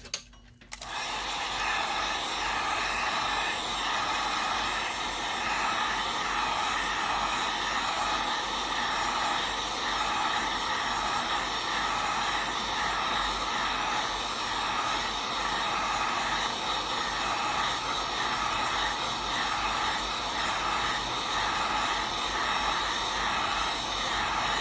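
Heat gun switched on about a second in and blowing steadily, heating a phone's screen to loosen it for prying off.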